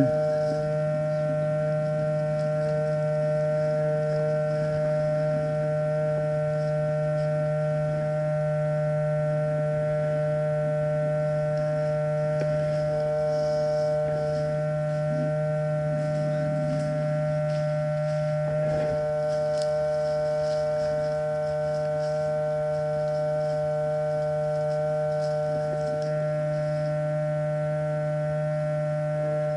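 A steady drone of several held tones that does not change in pitch or loudness.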